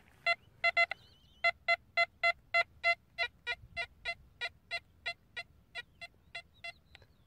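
Nokta Impact metal detector with its stock coil beeping on a 50-cent coin: a rapid series of short, identical electronic beeps, about four a second. The beeps get fainter in the second half as the coin is moved out toward the coil's detection limit of about 40 cm.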